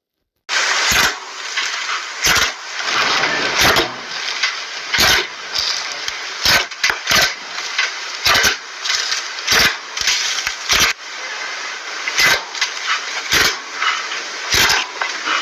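Slime being squished and poked by hand: a steady crackling hiss with sharp pops about once a second.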